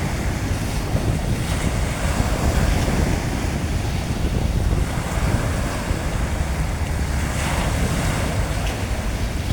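Sea waves washing onto a beach, with wind rumbling on the microphone.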